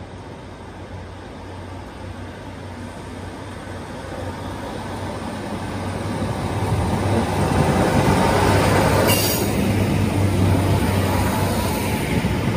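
Class 150 Sprinter diesel multiple unit approaching and passing, its diesel engines droning and its wheels running on the rails. It grows steadily louder and is loudest as the cab and first coach go by, with a brief sharp burst of high noise about nine seconds in.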